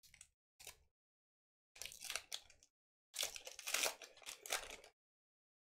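Foil wrapper of a Pokémon TCG booster pack crinkling and tearing as it is opened and the cards are pulled out. It comes in four short bursts of rustling, the last the longest and loudest, starting about three seconds in.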